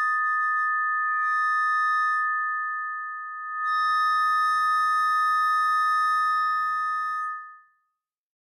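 Microphone feedback: a loud, steady high-pitched squeal on two tones, dipping briefly about three seconds in and then swelling back, before dying away about a second before the end.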